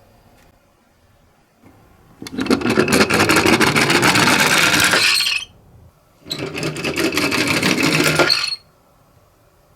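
Toy minicars rolling down a slope: two runs of rattling rolling noise full of small clicks, the first about three seconds long and the second about two, each stopping abruptly.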